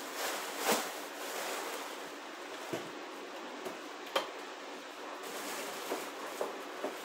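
Soft clicks and knocks of small objects being handled while rummaging through a box, a handful of them, over a steady hiss.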